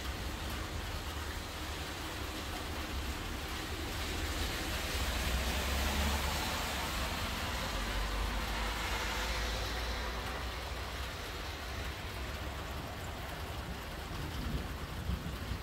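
Steady rain falling, with a car passing on the wet road: its tyre hiss swells about four seconds in, peaks around six seconds and fades out by about ten seconds.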